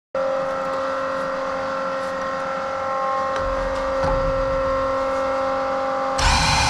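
A motor running at a steady speed, a constant pitched drone that starts abruptly, with a loud rushing burst near the end.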